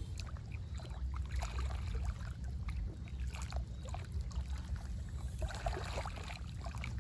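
Water splashing and trickling in small irregular sounds over a steady low rumble.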